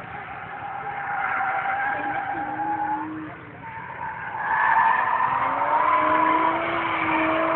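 Car drifting: the engine revs rise and fall while the tyres squeal in a sideways slide. It dips briefly a little before halfway, then grows louder as the car slides past close by.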